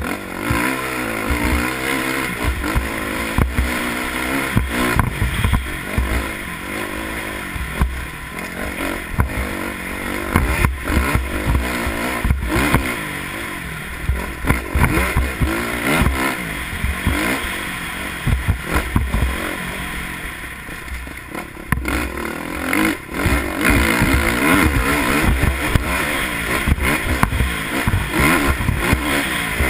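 Dirt bike engine revving up and down under load while climbing a rough, rocky trail, with frequent knocks and rattles from the bike jolting over the rocks.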